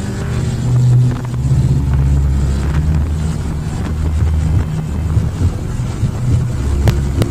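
Motorcycle engine running steadily on the move, a continuous low rumble, with wind noise on the microphone.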